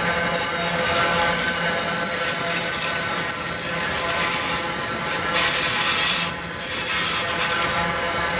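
Container wagons of a long freight train rolling past close by: loud, steady noise of steel wheels running on the rails, with a thin steady whine of several tones over it.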